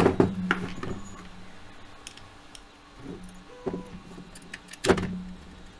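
Clicks, clinks and knocks of a MilSig M5 paintball marker's receiver parts and small metal screws being handled and taken apart on a workbench, with a cluster of clicks at the start and one sharp, louder knock about five seconds in.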